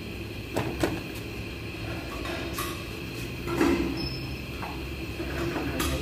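A handful of short clicks and knocks from a radiator fan assembly being handled, over a steady low background hum.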